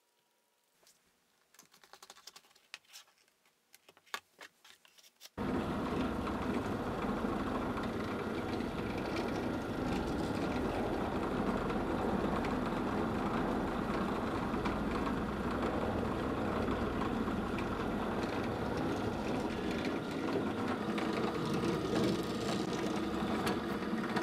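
Benchtop drill press running steadily with a thin bit over the leather sheath, used to drill holes through the thick leather. It starts suddenly about five seconds in, after a few faint light taps.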